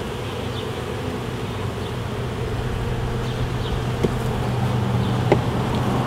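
A colony of honeybees buzzing in a steady hum around an opened hive, growing slightly louder, with two light clicks in the second half.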